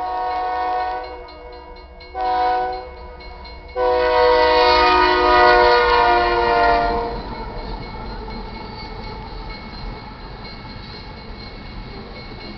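Diesel locomotive air horn (Union Pacific GE AC44CW) sounding the end of the grade-crossing signal: a long blast that ends about a second in, a short blast, then a loud long blast of about three seconds as the locomotive passes. After that comes the steady rumble of the loaded coal train's cars rolling by.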